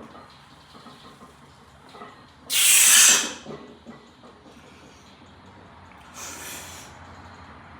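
A weightlifter's forceful hissing exhales while squatting 415 lb: one loud, sharp breath lasting about a second, two and a half seconds in, and a fainter one a few seconds later.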